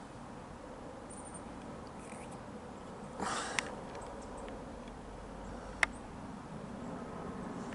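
Faint, steady rumble of an Airbus A321-231 airliner's twin IAE V2500 turbofans passing overhead on descent, swelling slightly near the end. A short rustle about three seconds in and a sharp click near six seconds.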